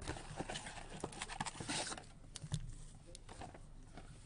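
Trading-card box and foil packs being handled: a dense rustle of wrapper and cardboard with many small clicks and knocks for the first two seconds, then sparser taps as the packs are set down.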